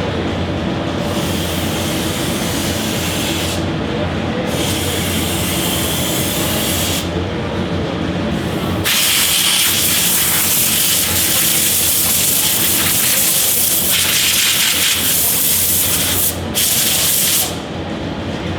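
Loud hissing that switches on and off several times, the longest run lasting about seven seconds, over a steady mechanical hum.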